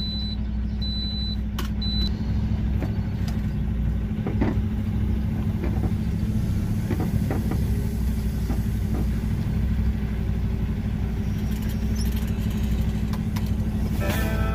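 Semi truck's diesel engine running steadily as the truck creeps forward and turns at low speed, heard inside the cab. Three short high beeps sound in the first two seconds, and light clicks and rattles come through now and then.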